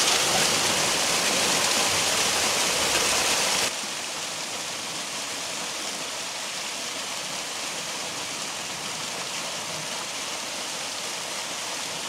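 Waterfall rushing as a steady, even hiss of falling water. About four seconds in it abruptly drops to a quieter, duller rush of water.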